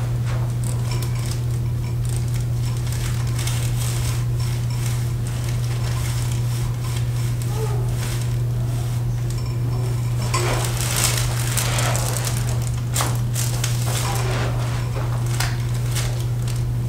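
A steady low hum, with scattered soft rustles and clicks of hands and hair against the head and the padded table as a patient's head is held and positioned for a chiropractic neck adjustment; the rustling is busiest about ten to thirteen seconds in.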